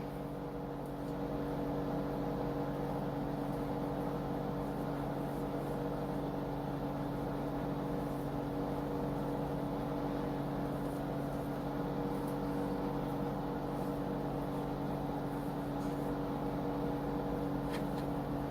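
Steady low mechanical hum at a fixed pitch, unchanging throughout, with a couple of faint clicks near the end.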